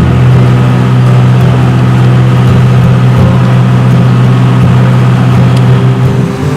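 Tractor engine running steadily at a constant speed, with a strong low hum that eases off near the end.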